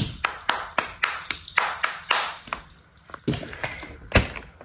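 A child clapping her hands quickly, about ten claps at roughly four a second, then a couple of duller knocks in the second half.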